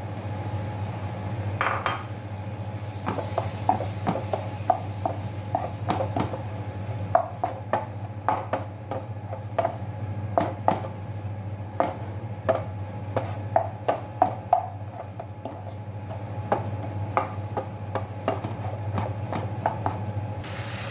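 Wooden spatula stirring chopped tomatoes and onions in a nonstick frying pan, with irregular knocks and scrapes against the pan, over a steady low hum.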